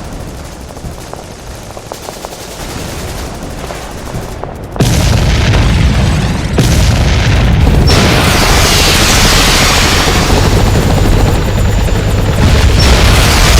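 Film-trailer sound design: a hiss with faint crackles, then a sudden loud boom about five seconds in that runs on as a dense, deep rumble under music.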